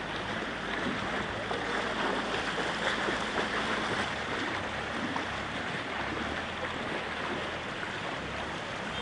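Steady rushing noise of flowing floodwater.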